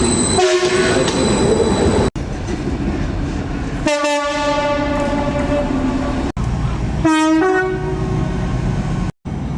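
Train horns sounding in three separate blasts, the middle one the longest at about a second and a half, over the steady rumble and clatter of trains on the track. The clips are cut together, so the sound breaks off abruptly between them.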